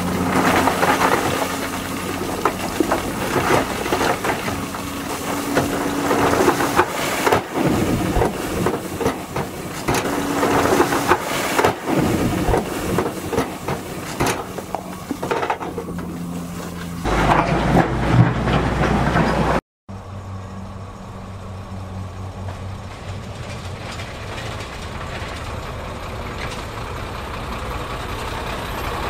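Heavy diesel engines of 18-ton dump trucks running while rock loads are tipped, stones clattering and sliding off the beds in many short knocks. A deep rumble swells, then the sound cuts out for an instant about two-thirds through and continues as a quieter, steadier engine sound.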